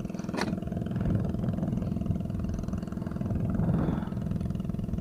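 Boat engine running steadily at an even pitch, with a single sharp click about half a second in.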